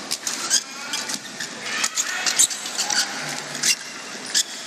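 Badminton doubles rally: a quick, irregular run of sharp racket strikes on the shuttlecock, mixed with short high squeaks of court shoes on the floor.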